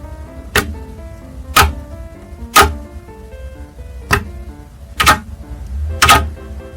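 Soft background music of short plucked notes, with loud sharp clicks or taps about once a second, one missing in the middle of the run.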